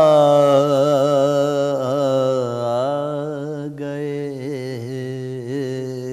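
A man's voice chanting a devotional manqabat in long, wavering held notes, the first one sliding downward, over a steady low drone.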